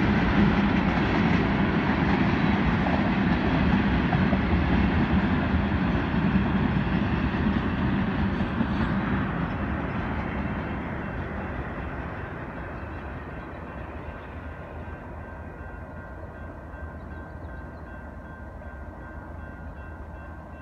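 Freight train of railroad tank cars rolling past, a dense steady rumble of wheels on rail that fades away gradually over the second half as the train draws off.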